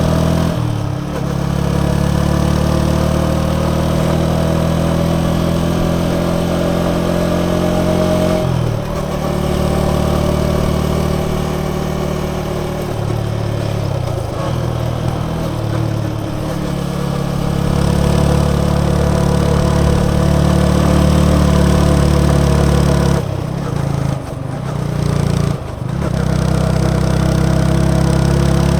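Yamaha XSR 155's single-cylinder engine and exhaust under way, the engine note climbing and then dropping several times as gears are shifted and the throttle is eased. There are a few brief, quick throttle cuts near the end.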